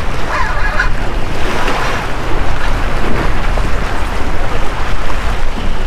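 Wind buffeting the microphone over small waves washing and splashing against jetty rocks, a steady rushing noise heaviest in the low end. A brief voice sounds about half a second in.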